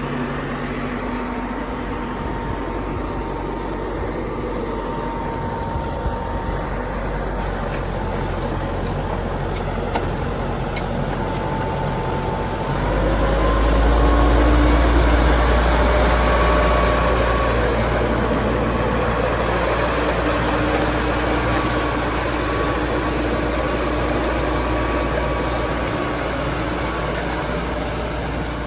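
John Deere 555 crawler loader's diesel engine running steadily, then throttled up about halfway through, where its pitch steps up and it gets louder.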